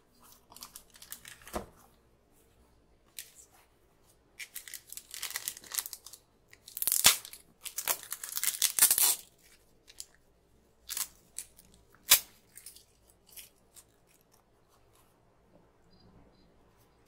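Cardboard shipping box and paper packing material handled, torn and crumpled by hand while unpacking, in irregular rustling bursts that are loudest about halfway through, with a few sharp snaps a little later.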